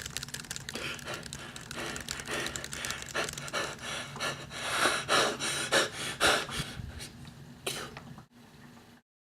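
A person panting heavily, the breaths growing louder toward the middle and then dying away, with a sudden cut to silence just before the end.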